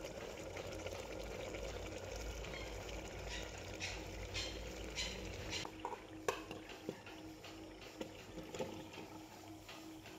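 Mutton curry bubbling and sizzling in an aluminium pot, then a few sharp knocks and clunks from about six seconds in as peeled potato chunks are tipped in from a metal bowl, the loudest knock just after six seconds.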